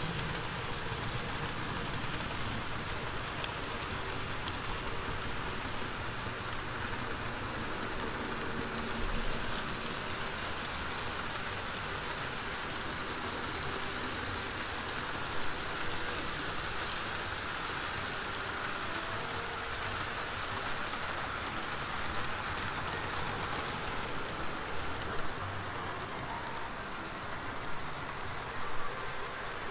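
Long HO-scale model freight train rolling along the track: a steady rolling rumble of the cars' wheels on the rails, with a few brief louder clicks.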